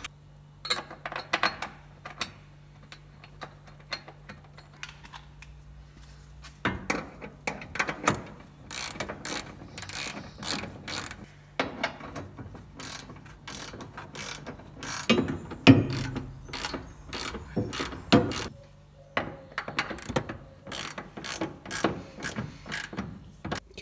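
Hand ratchet wrench clicking in repeated runs as bolts are run in to fasten a seat base to the car's floor.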